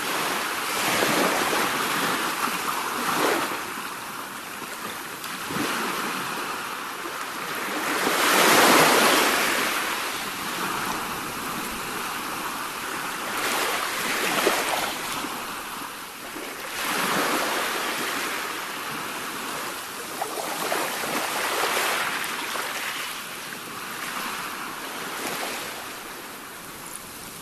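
Sea waves breaking and washing up the shore in irregular surges of hiss. The biggest wave crashes about nine seconds in, with smaller ones rolling in every few seconds.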